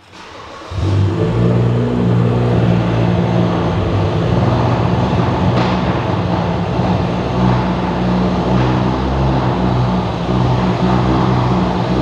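Straight-piped BMW N55 turbocharged straight-six starting up less than a second in and then idling loudly and really rough, shaken by a severe misfire.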